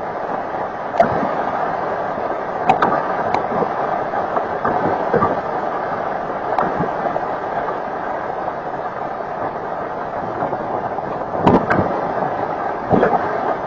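Hailstorm recorded through a home security camera's microphone: a steady, dense rush of falling hail and rain. Scattered sharp hailstone impacts stand out, a cluster of them near the end.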